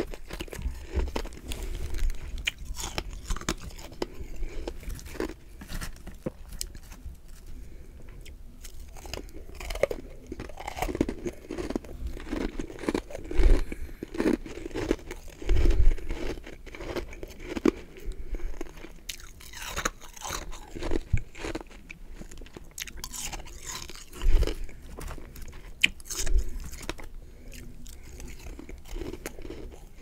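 Close-miked chewing of powdery freezer frost (humidifier freezer frost): a dense run of irregular crisp crunches, with a few louder bites in the middle and about three-quarters through.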